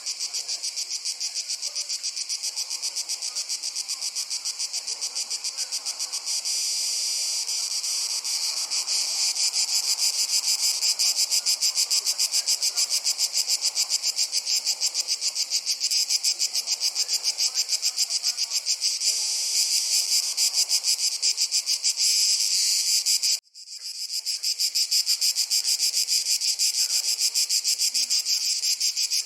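Crickets chirping in a dense, fast, high-pitched pulsing chorus that swells a little about eight seconds in. About 23 seconds in it cuts out for a split second, then resumes.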